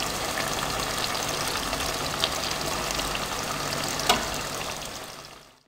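A frying pan of eggplant, potato and tomato stew sizzling steadily as beaten egg is poured in, with a couple of light clicks; the sizzle fades out near the end.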